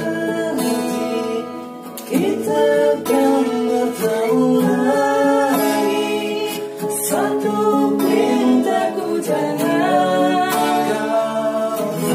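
A man singing a song to acoustic guitar accompaniment, the guitars strummed and plucked under the voice.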